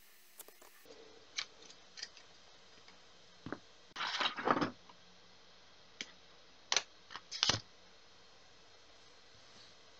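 Handling noises from crafting: a scatter of light clicks and taps, with a short rustling scrape about four seconds in. This is twine and a small hand tool being handled on the tabletop.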